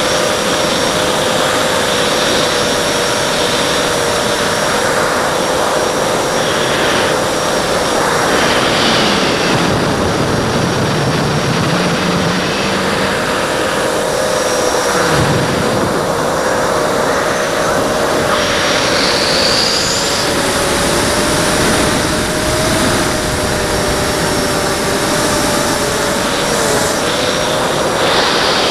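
A hexacopter's six brushless motors (Multistar Elite 2204/2300KV) spinning Gemfan 5x3 three-blade props in flight: a steady, loud whine whose pitch wavers slightly, over a continuous rushing noise.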